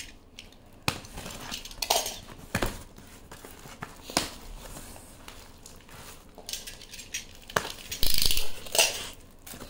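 Goods and packaging being handled while a box is unpacked: scattered knocks and clinks of items set down and moved, with a louder rustle and scrape of packaging about eight seconds in.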